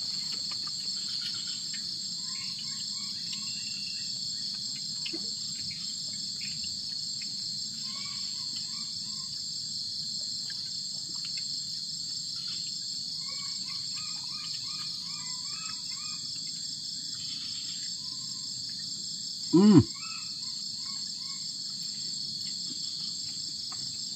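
Steady, high-pitched insect chorus with birds chirping in short phrases now and then. About twenty seconds in comes one brief, much louder sound with a sliding pitch.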